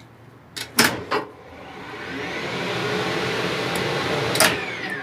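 Elevator hoist motor switched on through its newly replaced contactor: a few sharp contactor clicks about a second in, then the motor runs up with a whine that rises for about three seconds. Near the end another click and the whine winds down.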